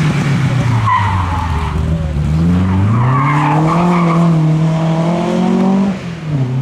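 Rally car engine run hard: the revs fall over the first couple of seconds as it brakes for a corner, then climb again as it accelerates away, with a sharp dip and rise near the end at a gear change. There is tyre noise along with the engine.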